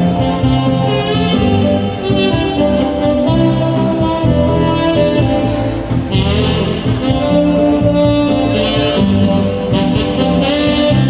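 Saxophone playing a slow song melody over a backing-track accompaniment, holding its long notes with vibrato.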